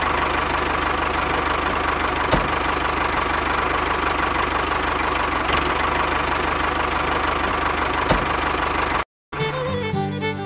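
Tractor engine idling steadily, with a fast, even low chug and two brief clicks. It cuts off sharply about nine seconds in, and instrumental music with fiddle begins.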